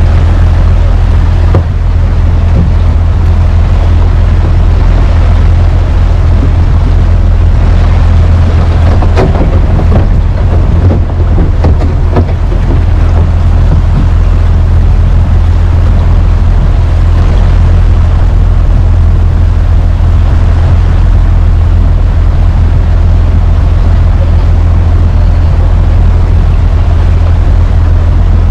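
Tour boat's engine running steadily underway, a constant low drone, with wind noise on the microphone.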